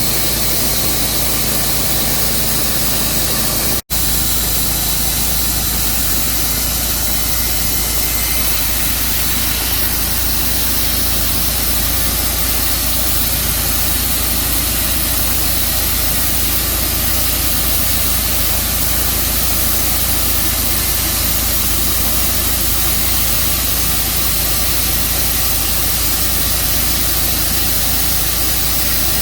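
Band sawmill running: a steady engine drone with a loud hiss over it. The sound drops out for an instant about four seconds in.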